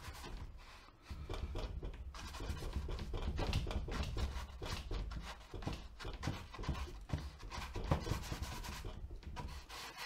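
Large bristle brush scrubbing thin, watery paint onto a stretched canvas in rapid back-and-forth strokes, the bristles rubbing and scratching on the canvas weave.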